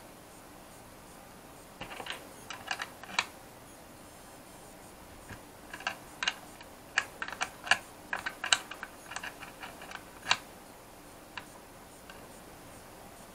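Irregular light metallic clicks and taps as a small spanner and pliers work on the antenna connector nut in a plastic drone remote-controller shell, tightening the nut. The clicks come in a short flurry about two seconds in, then a longer run from about six to ten seconds.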